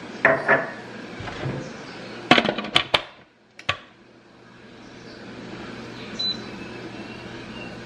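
Plastic lid of an electric multicooker clattering and clicking as it is set on the pot and twisted to lock, with a quick run of sharp clicks about two and a half seconds in. A short electronic beep from the cooker's control panel comes about six seconds in.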